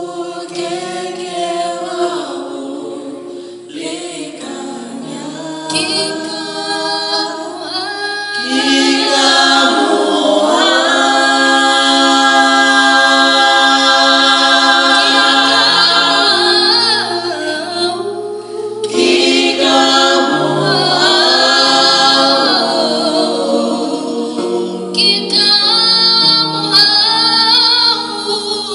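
Vocal group singing a cappella in harmony, several voices together with no instruments; the singing swells louder about eight seconds in and stays full.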